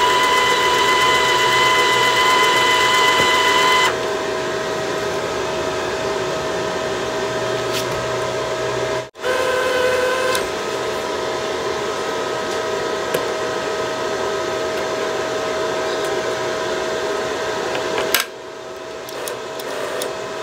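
MIG welder's wire-feed motor whining as the torch trigger is pressed, over the machine's steady hum; the drive roll is not turning the flux-core wire because the tension arm is set too tight. The whine runs for about the first four seconds and comes again briefly about nine seconds in.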